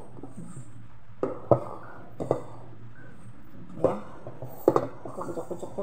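A hand mixing a minced meat and flour filling in a metal pot, with several sharp knocks against the pot and a run of quicker, smaller ones near the end.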